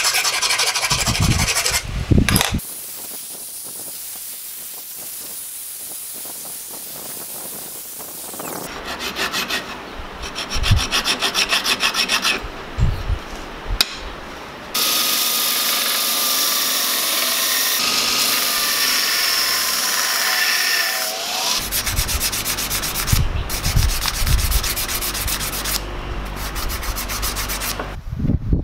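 Hand file rasping on a small mild-steel workpiece clamped in a bench vise, in quick back-and-forth strokes. Stretches of other metal-finishing work come between, including a duller steady rubbing and a loud noisy stretch with a whine that falls in pitch.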